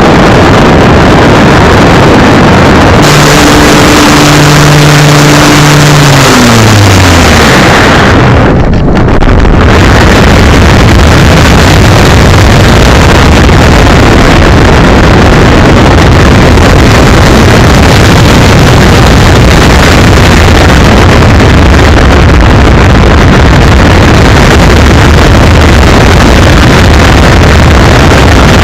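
Electric RC airplane's brushless motor and propeller heard through a small onboard camera microphone, mostly a loud, overdriven rush of wind and prop noise. About three seconds in, a pitched motor whine appears and then slides down in pitch; just before nine seconds the noise briefly dips, then the steady rush carries on.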